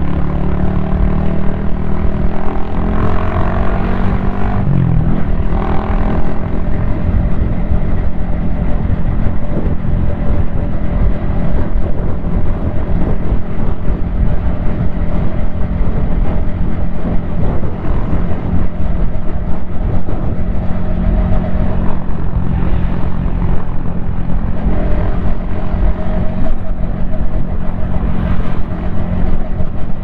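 Yamaha XSR155's 155 cc single-cylinder engine running as the motorcycle rides along. The pitch rises and falls over the first few seconds, then it holds a steady cruise. Heavy wind rumble on the helmet-mounted microphone runs underneath.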